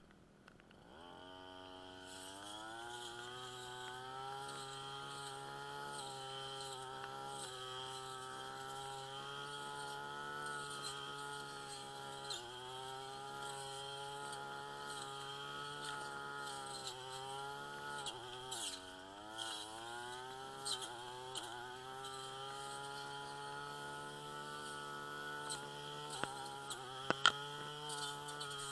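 Two-stroke brush cutter engine starting up and revving to speed in the first couple of seconds, then running steadily at high revs. Its pitch sags and recovers about two-thirds through, and a few sharp clicks come near the end.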